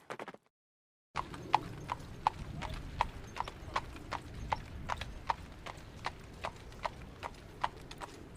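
Horse hooves clip-clopping on hard ground at a steady trot, about three crisp strikes a second over a low rumbling background. The hoofbeats start after a brief silence about a second in.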